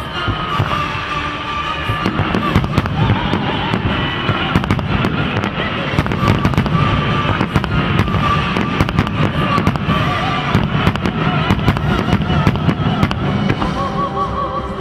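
Fireworks display: a dense run of bangs and crackling bursts, many a second, with music playing under them.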